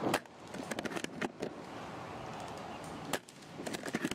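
A series of sharp clicks and cracks at irregular intervals, the loudest right at the start and another about three seconds in, over a faint background hiss.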